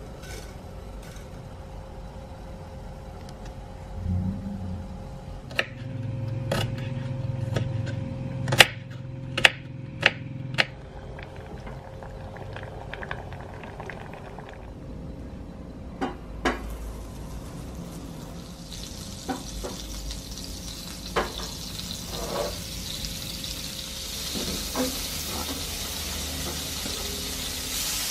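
Cooking on a hob: a series of sharp metal knocks and clinks of utensils against a pot of spaghetti in water. About two-thirds of the way through, a steady sizzling builds as chopped onion fries in a pan, stirred with a spatula, with a few more taps.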